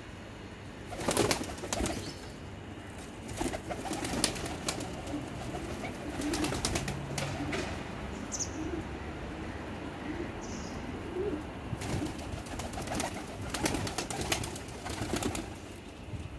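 A flock of domestic pigeons cooing, with several bursts of wing flapping and clatter.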